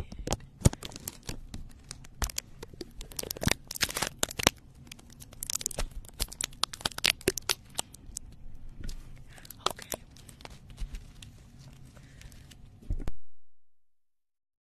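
Plastic packaging crinkling and crackling right up against a microphone, with a run of sharp crackles and a little tearing, as it is handled and opened. The sound cuts off abruptly a little before the end.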